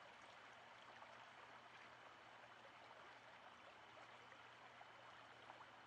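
Faint, steady rush of creek water flowing.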